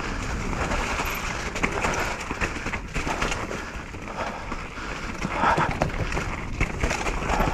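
Mountain bike descending a wet, root-strewn dirt trail: tyres rolling and scrubbing over dirt, leaves and roots, with irregular small knocks and rattles from the bike.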